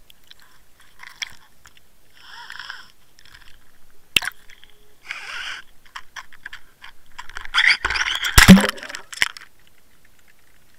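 Underwater crackling and scattered sharp clicks picked up through the housing of a Water Wolf underwater fishing camera on the line. About eight seconds in comes a louder burst of rushing, knocking noise with one heavy thump.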